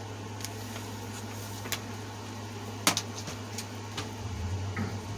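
Room air conditioner running with a steady low hum, with a few light clicks and one sharper tap about three seconds in.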